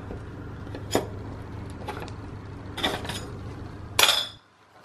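Steel pallet knife clicking and scraping against a uPVC glazing bead as it is levered out of a double-glazed window frame: a few sharp clicks, the loudest near the end.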